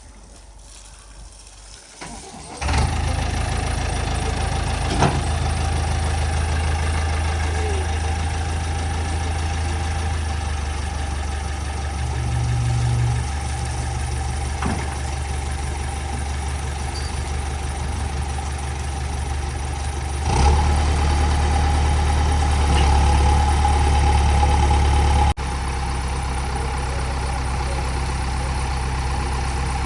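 A JCB 3DX backhoe loader's diesel engine starts about two and a half seconds in and then runs steadily at idle. It gets louder for several seconds near the twenty-second mark, then drops back suddenly.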